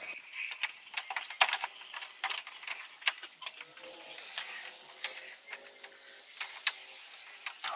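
Irregular plastic clicks and taps as the upper trim panel along the top of a car's front bumper is fitted and pressed into place.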